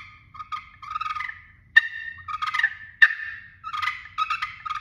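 Handmade Hawaiian Koa slate pot turkey call played with a striker: a run of yelps, each breaking between a higher and a lower note, with a few sharp clucks among them.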